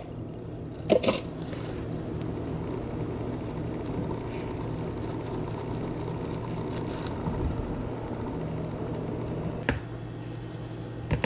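Flour sifter being worked to sift all-purpose flour: a steady mechanical whir, with a couple of clicks about a second in and a sharp knock near the end.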